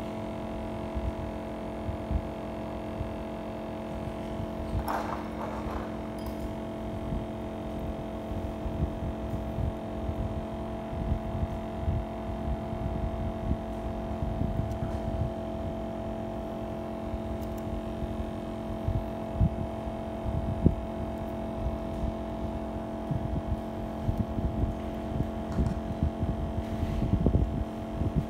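A steady electrical hum made of several held tones, with irregular low thumps and knocks running under it.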